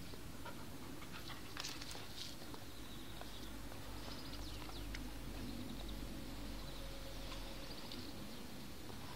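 Siberian husky chewing gooseberries: faint, scattered small wet clicks and crunches.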